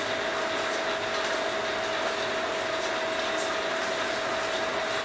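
Steady hiss and hum of running equipment with one constant mid-pitched tone and faint light ticks.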